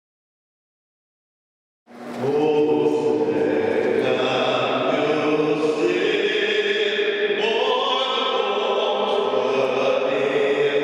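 About two seconds of dead silence, then a choir singing long, sustained chords.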